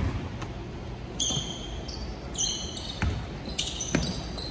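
Basketball bouncing on a hardwood gym floor, with a sharp loud bounce at the start and more thuds about three and four seconds in, while basketball shoes squeak in short high chirps on the court.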